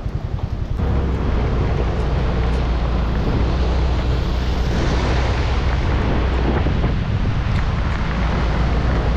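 Heavy rain, a dense steady hiss with a strong low rumble underneath that sets in about a second in and holds.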